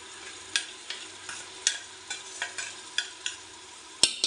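Steel spoon scraping and knocking against a steel bowl as onion-tomato paste is tipped into hot oil, over a low steady sizzle; about nine sharp clinks, then a louder double clank near the end.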